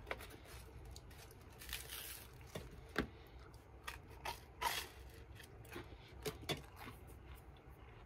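Quiet eating noises from one person at a meal: a few short crunchy bites and chewing, with scattered small clicks and scrapes of plate and hands.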